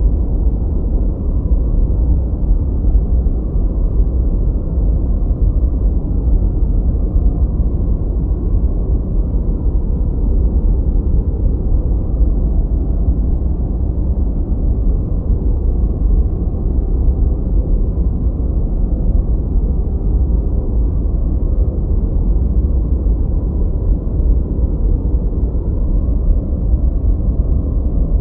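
Gentle white noise, softened so it sounds deep and muffled, like a steady low rumble with no bright hiss on top. It stays even throughout, without any change or break.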